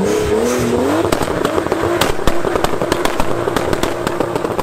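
RB25DET turbocharged inline-six in a Nissan 240SX S14 revving up over the first second, then held high during a burnout with the rear tyres spinning. A rapid, irregular crackle of sharp pops runs through it.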